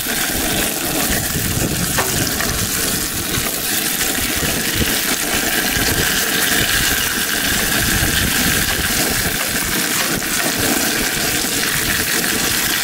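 Brook trout fillet sizzling in oil in a cast-iron skillet, a steady hiss, with wind buffeting the microphone in uneven low gusts.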